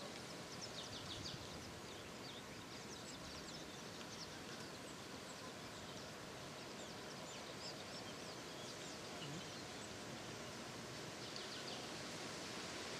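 Birds chirping: many short, high calls scattered throughout, with a small cluster near the end, over a faint steady hiss.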